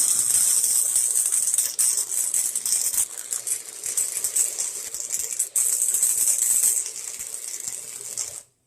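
Harbor Freight 90-amp flux-core wire welder arc welding steel: a steady crackling sizzle with short breaks in the bead. It turns quieter about seven seconds in and stops suddenly near the end when the trigger is released.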